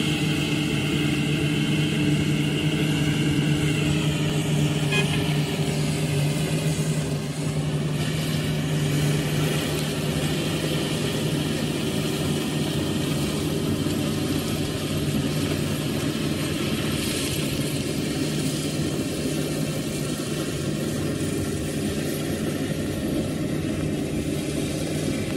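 Sugarcane harvester and the tractor running alongside it as they cut and load cane, a steady diesel drone with a high whine. The whine drops in pitch a few seconds in.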